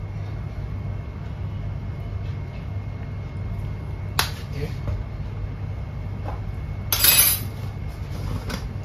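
Kitchen handling noise over a steady low hum: a sharp click about four seconds in, then a short, louder clatter of utensils or containers about seven seconds in.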